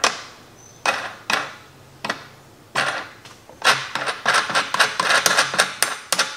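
Small steel hardware clinking on carriage bolts and slotted angle steel: a steel flat washer and a 3/8-16 wing nut go onto a bolt. A few separate clinks come first, then from about halfway a fast run of clicking as the wing nut is spun down the thread.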